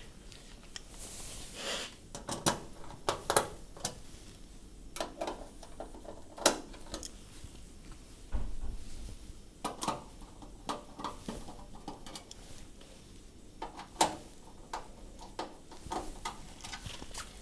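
Scattered clicks, taps and knocks of screws and metal parts being handled while the screws are taken out to fit the fan box assembly on an induction range cooker, with a low thud about eight seconds in.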